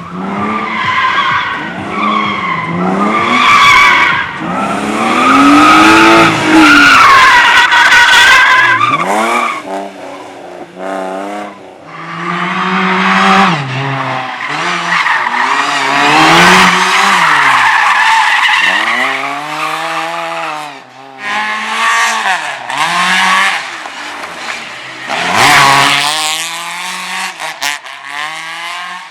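Slalom race car driven hard through a cone course. The engine revs up and drops back repeatedly as it shifts and brakes, and the tyres squeal through the turns. It is loudest as the car passes close, a few seconds in and again in the middle.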